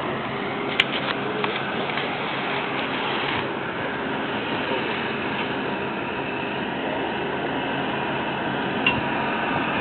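Marine railway boat carriage moving on its rails: a steady mechanical rumble and hum, with a sharp click about a second in and a smaller one near the end.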